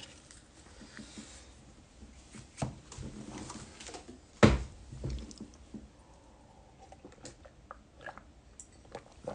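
Quiet room tone with scattered light clicks and knocks, and one louder knock about four and a half seconds in.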